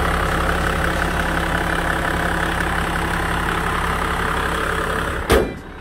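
Toyota Land Cruiser 80-series VX Turbo's 4.2-litre straight-six turbodiesel idling steadily, heard from its open engine bay and sounding smooth. It ends abruptly with a short thump about five seconds in.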